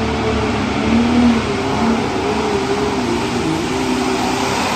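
A Limited Pro Stock pulling tractor's turbocharged diesel engine running flat out as it drags the weight sled down the track. It is a loud, steady drone whose pitch wavers up and down.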